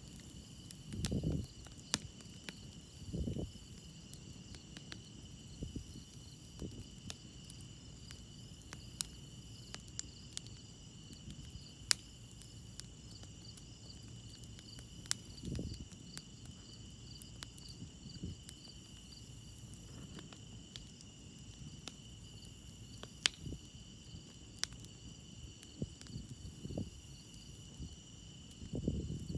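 Crickets chirping in a steady chorus over a wood campfire crackling, with irregular sharp pops and snaps from the burning wood. A few soft low thuds come now and then.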